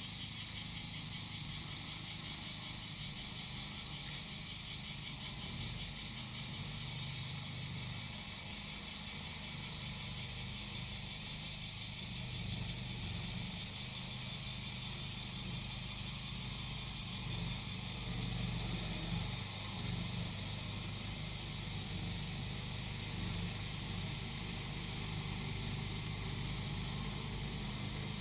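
Small petrol engine of a grass-cutting machine running steadily under a constant chorus of cicadas, whose shrill, fast-pulsing song fills the high range.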